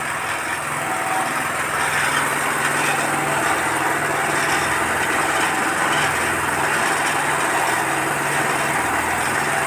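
Small petrol engine running steadily, driving a 200 kg animal-feed mixer.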